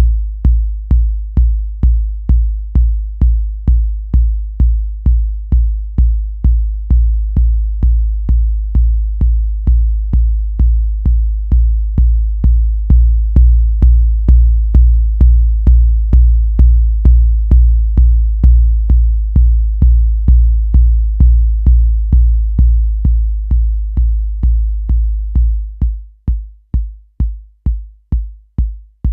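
Tip Top Audio BD808 Eurorack analog 808-style bass drum module, run through a dbx compressor, playing a steady kick pattern of about two hits a second. Each hit is a deep booming kick with a long tail; near the end the tail is suddenly cut much shorter, as the decay is turned down.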